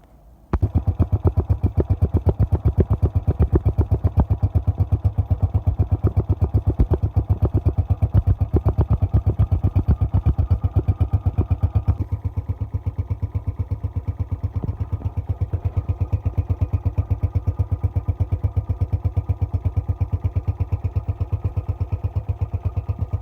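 Hi Speed SR 125 motorcycle's air-cooled single-cylinder four-stroke engine starting about half a second in and then idling with a steady, even beat. After about twelve seconds it runs a little softer.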